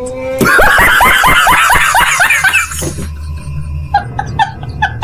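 High-pitched laughter, a quick run of about four to five 'ha's a second for two seconds or so, then trailing off into scattered short chuckles.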